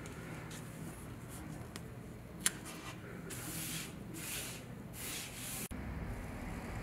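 Scratchy rubbing strokes of a hand and marker across paper and fabric: a sharp click about two and a half seconds in, then three short rasping strokes a little past halfway, over a low steady hum.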